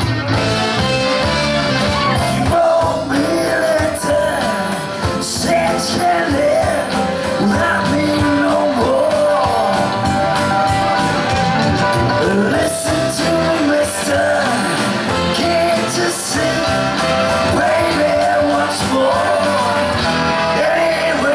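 Band playing a rock-and-roll song at a jam session: a wavering melodic lead line over steady held chords and rhythm, with no clear words sung.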